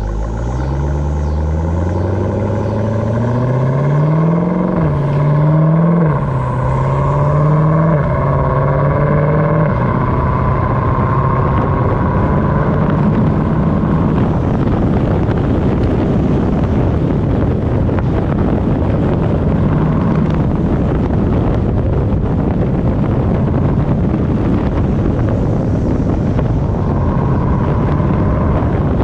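2018 Jeep Grand Cherokee Trackhawk's supercharged 6.2-litre V8 accelerating hard, its pitch climbing through the first few seconds, then a series of quick upshifts between about five and ten seconds in. It then settles into a steady drone at speed under heavy wind and road noise.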